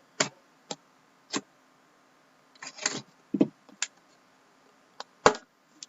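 Hands handling a trading card box and its packaging: a string of short rustles, clicks and knocks with quiet gaps between them. The loudest knock comes about five seconds in.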